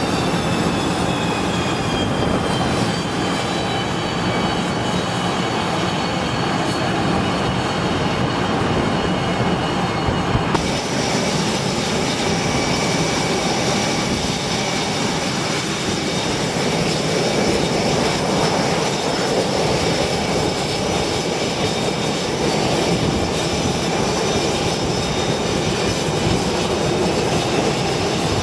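F/A-18 Super Hornet jet engines running on a carrier flight deck: a steady rumble with high whining tones. The whine slides slightly lower over the first ten seconds. A cut about ten seconds in changes its pitch.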